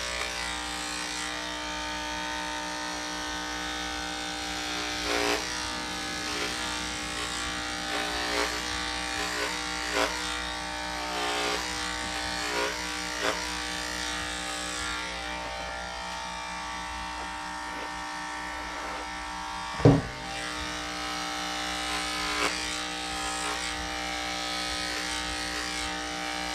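Cordless electric dog clippers running with a steady motor hum while shaving down a Standard Schnauzer's coat, with scattered small clicks. A single sharp knock about 20 seconds in is the loudest moment.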